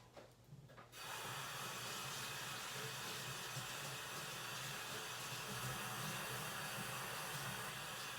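Tap water running steadily into a sink, starting about a second in, for hand-washing.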